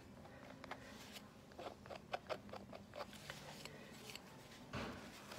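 Palette knife dabbing and scraping oil and cold wax paint on a painting panel: a run of faint short clicks and scrapes, then a louder knock near the end.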